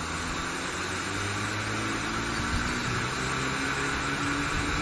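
Steady hiss with a low hum from a standing steam locomotive, growing slightly louder.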